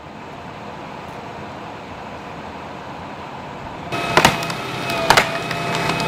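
Steady hum of idling vehicles. About four seconds in, a flatbed tow truck starts righting the overturned car: a steady machine whine with several sharp clanks and cracks as the car is hauled up onto its side.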